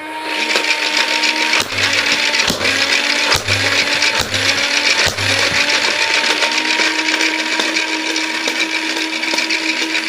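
Motorized Nerf blaster running: a steady motor whine with a rhythmic mechanical cycling about twice a second, and several sharp snaps of darts being fired in the first half.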